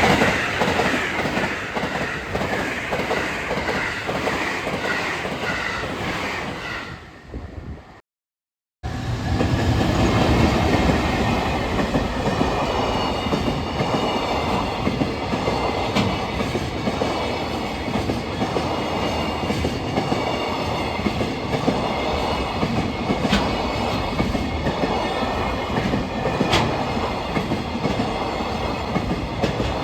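A train running past on the line, wheels clattering over rail joints, fading away after about seven seconds; after a brief cut to silence, another train rolls by with a steady rumble and occasional sharp clicks from the wheels.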